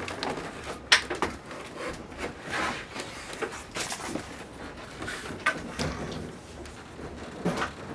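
Knocks, bumps and scraping as a large rear-projection TV cabinet is handled and shifted around on its stand, with a sharp knock about a second in.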